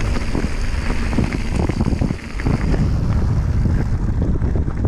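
Mountain bike riding downhill on a leaf-covered dirt trail: wind buffeting the handlebar camera's microphone, with tyres rolling over leaves and dirt and frequent knocks and rattles from the bike over bumps.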